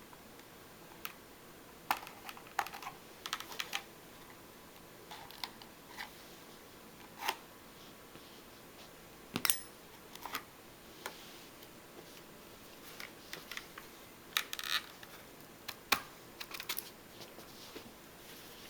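Paper model shotgun parts being handled and taken apart: scattered light clicks, taps and short clatters as pieces are pulled off and set down, the sharpest a little past halfway and again near the end.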